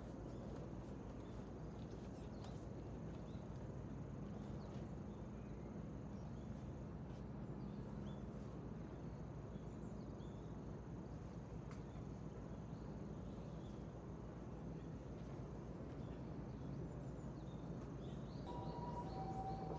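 Outdoor ambience: a steady, faint, high insect trill with scattered small chirps over a low, even rumble. Near the end, two steady tones come in, one just below the other.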